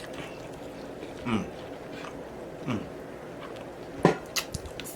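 A person eating a BBQ rib sandwich: chewing with wet mouth clicks and smacks, the sharpest about four seconds in. Three short falling "mm" hums of enjoyment come roughly every second and a half.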